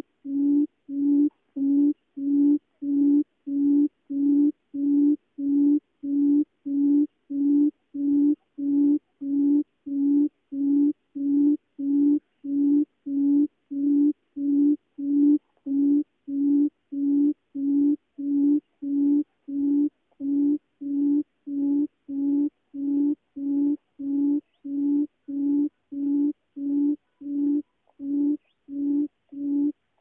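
Female barred buttonquail giving its booming call: a long, even series of short, low hoots at a steady pitch, about one and a half a second.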